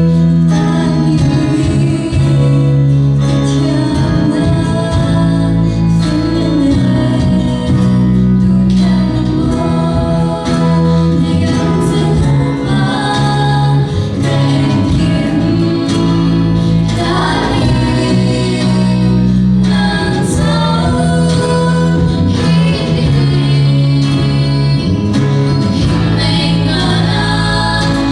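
Voices singing a Christian song with guitar and bass accompaniment.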